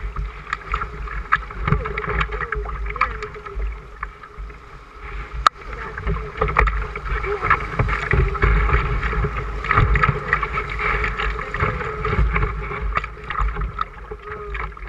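River water rushing and splashing around a canoe running through riffles, close to the microphone, with a low rumble beneath. A single sharp knock comes about five and a half seconds in.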